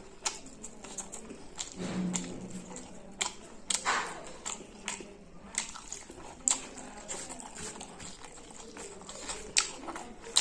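Close-miked eating of rice and chicken: wet chewing and lip-smacking with many sharp mouth clicks, and no words.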